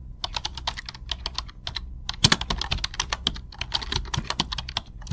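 Computer keyboard typing sound effect: rapid, irregular key clicks over a steady low hum, starting abruptly.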